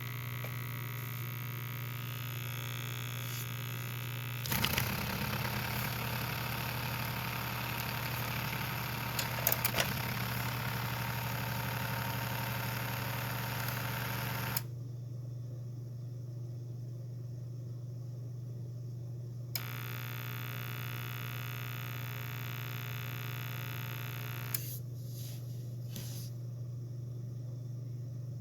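Bosch dishwasher drain pump motor running with a steady low hum. For about ten seconds, starting some four seconds in, a louder hissing noise sits over the hum, with a few clicks in the middle of it. The hissing stops abruptly, then comes back more faintly for about five seconds later on.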